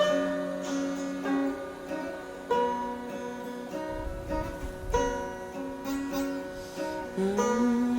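Guitar music: plucked notes and held chords that ring and change every second or two, with a note sliding upward about seven seconds in.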